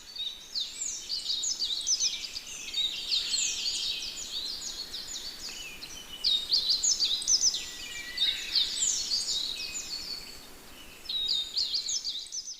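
A chorus of many small birds chirping and singing at once, with quick high chirps overlapping continuously over a faint steady hiss.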